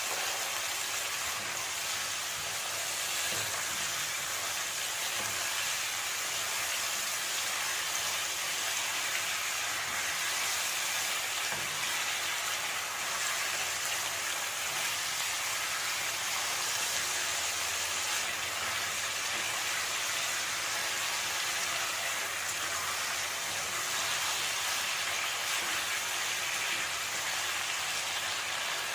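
Food frying in hot oil in a pan, a steady sizzle with no breaks.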